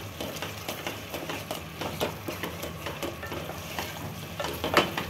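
Wooden spatula stirring a thick tomato and mutton masala in an aluminium pressure-cooker pot, with repeated scrapes and light clicks against the pot over a faint sizzle as the masala fries; one sharper knock near the end.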